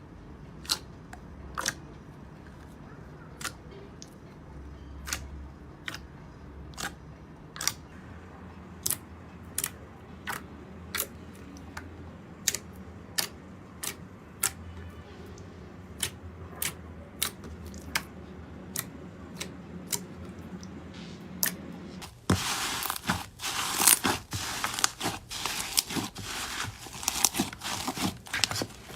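Slime being squeezed and pressed by hand, giving sharp clicking pops about once or twice a second. About 22 seconds in it changes to a louder, dense crackling.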